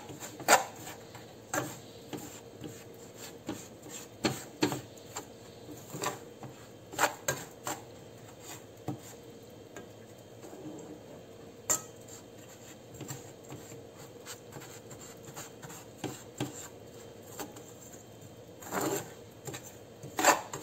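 Metal spoon stirring and scraping crumbly soil in an aluminium saucepan: irregular scrapes and clinks of the spoon against the pan, with a few sharper knocks, as the lumps of soil are broken up while it dries on the heat.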